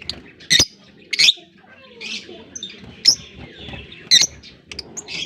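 A colony of African lovebirds calling: four loud, sharp shrieks over steady quieter chirping and chatter.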